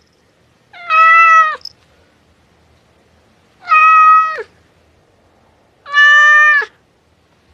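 Domestic cat meowing three times, about two seconds apart; each meow is a short, steady call that drops in pitch at the end.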